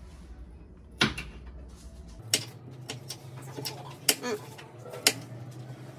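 A kitchen knife chopping a green pepper on the countertop. Sharp, irregular clicks come from the blade striking the surface, about half a dozen cuts, the loudest about a second in. A low steady hum runs underneath and changes pitch about two seconds in.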